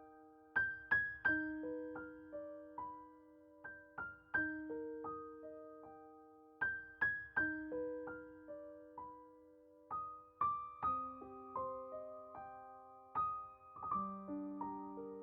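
Background solo piano music: a slow, gentle repeating broken-chord pattern, each note struck and left to ring, with the harmony shifting lower about ten seconds in.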